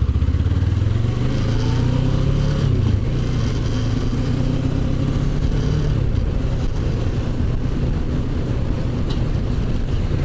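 Motorcycle engine accelerating while riding, rising in pitch over the first three seconds, dropping as it shifts up, then running steadily, with road and wind noise.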